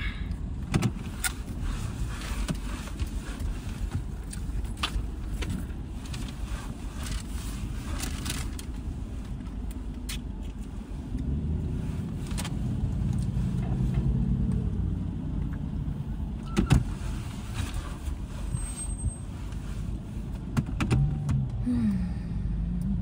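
Steady low rumble of a car's engine and road noise heard inside the cabin, growing louder for a few seconds about halfway through, with scattered clicks and rustles of handling in the car.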